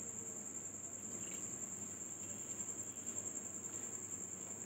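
Faint sounds of water being poured into flour in a glass bowl and a hand mixing it into dough, over a constant high-pitched tone.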